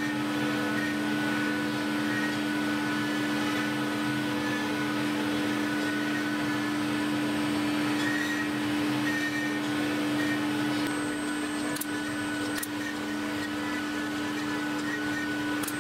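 Steady hum of workshop machinery with a strong low tone, and two sharp clicks about three-quarters of the way through.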